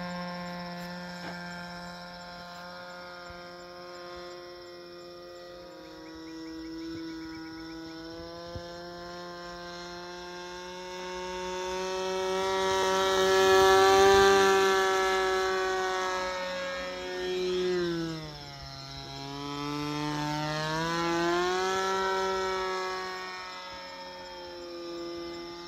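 NGH GT9 PRO 9cc two-stroke gasoline engine with an APC 12.25x3.75 propeller, running in flight on an RC trainer plane. It swells to its loudest about halfway through as the plane passes, and its pitch dips and climbs back about two-thirds of the way in as the throttle is eased back and opened again.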